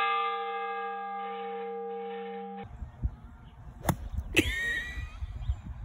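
A large ship's bell ringing after a strike, several steady tones slowly fading, cut off abruptly about two and a half seconds in. Then two sharp hits a half second apart as a golf club strikes the turf.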